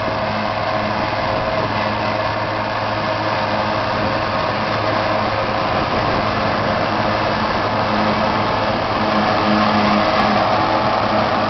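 John Deere 7320 tractor's diesel engine running steadily under load, driving a Gehl 865 forage chopper as it chops haylage. The sound grows slightly louder in the last few seconds.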